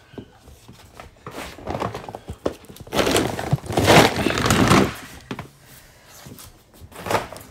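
Rustling and thuds of handling noise, loudest from about three to five seconds in, with a sharp knock about a second before the end.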